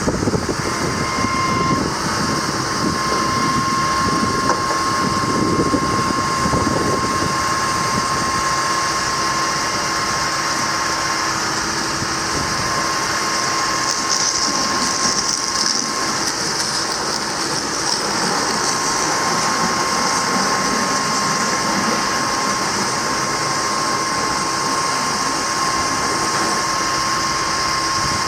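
2008 GMC C5500 bucket truck's 6.6 L Duramax diesel running steadily, with a thin steady whine that drops out for a couple of seconds about halfway through.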